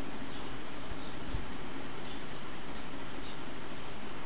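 Steady background hiss and low hum from an open microphone, with faint short high chirps recurring about every half second.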